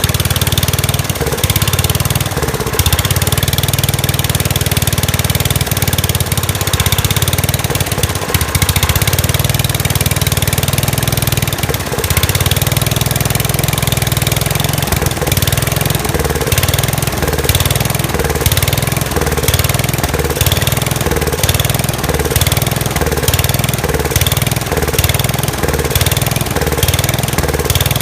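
Kohler K241 single-cylinder engine on a Gravely Commercial 10 walk-behind tractor running at about idle after a carburetor rebuild. From about halfway through it pulses regularly, about three times every two seconds; the owner puts the engine's surging down to rust from the gas tank.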